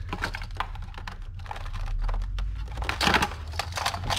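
Plastic connectors and clips of the Lexus LS460 engine wiring harness clicking and rattling as they are handled and pried loose with a screwdriver: a quick run of small clicks, with a louder cluster about three seconds in, over a steady low hum.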